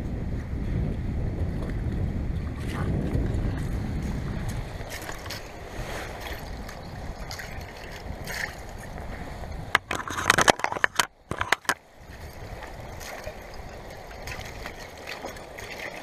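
Lake water lapping among floating slush ice, with scattered faint ticks. A low rumble of wind on the microphone in the first few seconds. A cluster of loud sharp clicks and knocks about ten seconds in.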